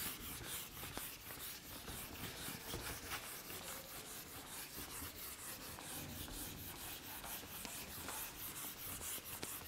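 Handheld eraser wiping marker ink off a whiteboard: faint, quick back-and-forth rubbing strokes, about four or five a second.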